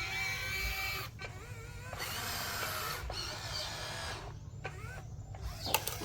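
Small electric gear motors of a radio-controlled toy excavator or dump truck whining, their pitch rising and falling as they start and stop several times.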